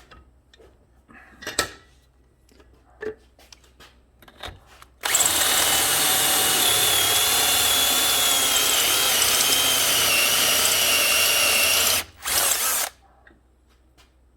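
Electric drill boring a hole in metal: a few light clicks of handling, then about seven seconds of steady drilling with a whining tone that wavers slightly as the bit cuts. It stops abruptly, then gives one short burst.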